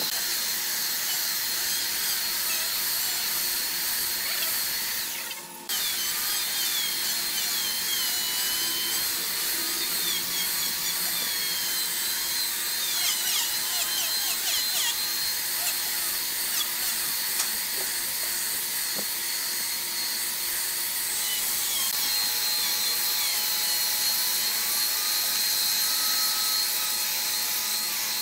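Handheld electric belt sander running on a solid-wood table top: a steady motor whine over the hiss of abrasive on wood, its pitch wavering now and then. There is a brief break about five seconds in.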